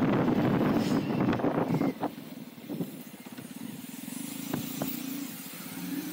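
Motorcycle riding along a road, its engine running under wind noise on the microphone; about two seconds in the sound drops to the quieter, steady hum of the engine as the bike rolls slowly, with a few sharp clicks.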